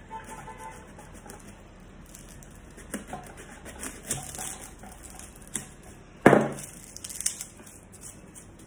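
Small kitchen knife cutting and scraping the root end of a garlic bulb, with light scratchy clicks of its papery skin. A single sharp knock comes about six seconds in.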